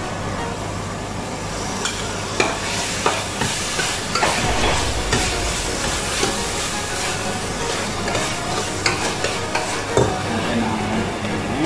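Sliced vegetables sizzling in a stainless steel saucepan while being stirred, the metal spatula scraping and knocking against the pan many times over the steady hiss of the frying.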